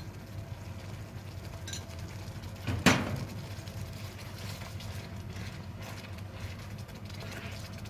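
Cooking sounds: tomato purée being spooned into a pan of simmering sauce, with one sharp knock of kitchenware about three seconds in. After that comes the soft scraping of a slotted spatula stirring through the sauce, over a steady low hum.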